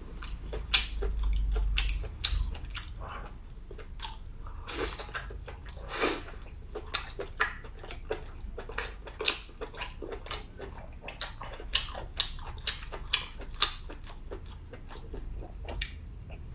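A person chewing food close to the microphone, with irregular wet smacks and mouth clicks several times a second.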